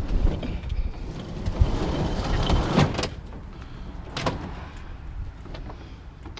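A metal barbecue grill being shoved and manoeuvred into the back of a vehicle: scraping and rattling with scattered knocks, a few sharp clanks about three and four seconds in, then quieter handling.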